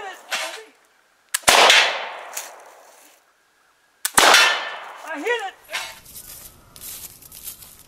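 Two black-powder flintlock pistol shots about two and a half seconds apart, each a sharp crack followed by a long fading echo through the woods.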